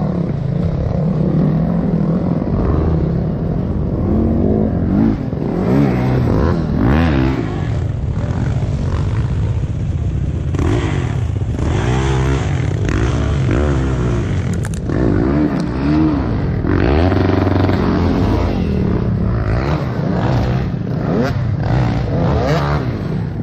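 Off-road dirt bike engines revving hard in repeated rising and falling bursts as riders work the bikes over logs. The rider's own bike sounds close, with other bikes revving at the same time.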